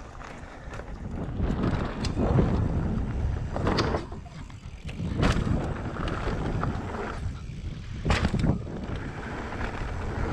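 Mountain bike ridden over rough trail: wind buffeting the microphone over a rumbling tyre noise, with sharp clattering knocks about 2, 4, 5 and 8 seconds in.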